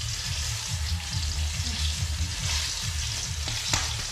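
Thick spaghetti sauce sizzling in a wide metal pan as it is stirred with a metal spatula. A few sharp clinks of the utensil against the pan come near the end.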